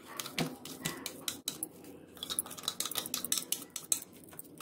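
A spoon scraping and knocking against the inside of a steel mixer-grinder jar as thick ground paste is emptied into a plastic bowl: a run of irregular metallic clinks and scrapes.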